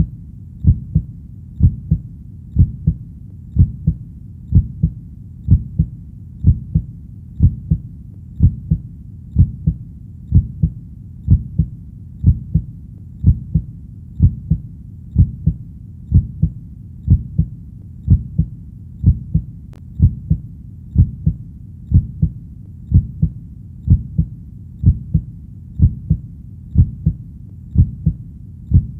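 Heartbeat sound: a steady lub-dub of two low thumps close together, repeating evenly about once a second.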